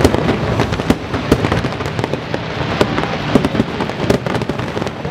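Aerial fireworks going off in a dense barrage: many bangs and crackles overlapping with no pause.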